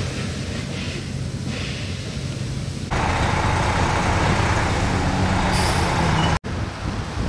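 Street traffic: a steady rumble of a bus and cars going by, with a short hiss just before a brief dropout near the end. Before about 3 s in, a duller, lower rumble.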